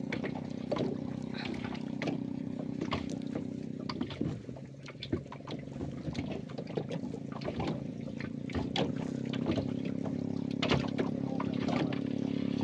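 Boat engine running steadily, with water trickling and dripping and scattered small clicks as a wet fishing longline is pulled in by hand over the boat's side.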